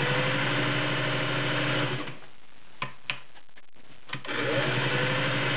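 Singer Touch & Sew 604 all-metal gear-drive sewing machine running at a steady speed, then stopping about two seconds in. A few sharp clicks follow. It starts again about four seconds in, its hum rising in pitch as it comes up to speed.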